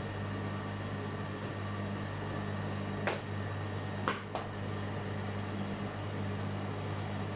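A steady low hum, with three short clicks around the middle: one about three seconds in and two close together about a second later.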